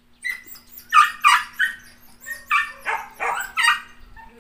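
A dog barking in two quick runs of three or four barks each.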